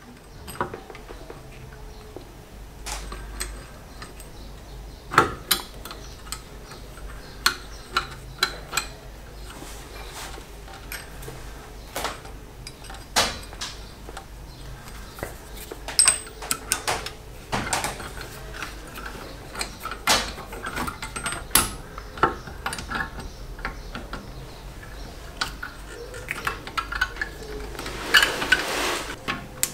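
Irregular metal clinks, taps and light knocks from hand-fitting the drum handbrake shoe parts and their retaining pins on a BMW E30 rear hub, with a denser clatter near the end.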